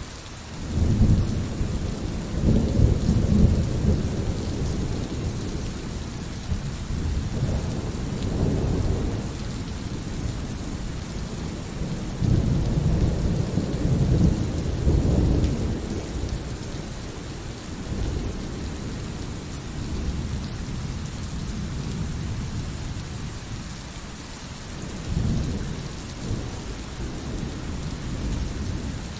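Thunderstorm: steady rain with several long rumbles of thunder that swell and fade, the biggest in the first few seconds and again about halfway through.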